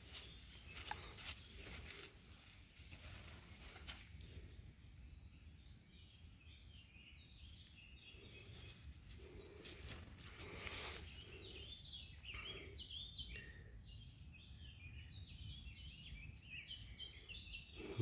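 Faint bird chirps and calls in woodland, denser in the second half, with a few quiet rustles and scrapes from handling a dirty knife in gloved hands.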